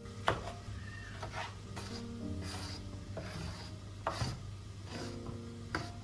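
Kitchen handling sounds over soft piano music: about six separate knocks and scraping strokes, with the sharpest one just after the start and another about four seconds in.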